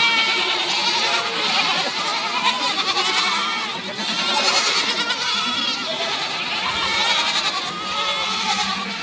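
A large herd of goats and young kids bleating all at once, many overlapping wavering calls with no break.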